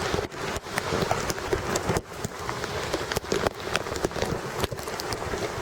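Steady rain falling, with irregular sharp taps of drops landing close by.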